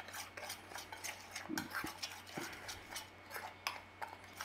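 A metal spoon stirring dry ground spice in a small stainless steel bowl, scraping and clinking irregularly against the metal.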